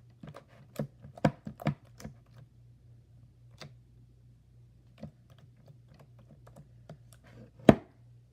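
Slime being mixed by hand, giving sharp sticky clicks and pops as the still-wet slime is worked: a quick run in the first two seconds, a few scattered ones after, and one loudest pop near the end.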